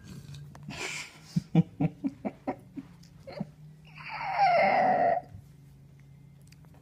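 A person laughing: a run of short stifled laugh pulses, then a long, high, wheezing laugh about four seconds in that is the loudest sound.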